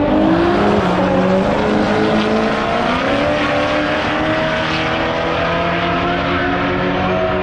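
A Nissan GT-R and a Corvette at full throttle in a roll race. Their engines climb steadily in pitch, stepping through gear changes.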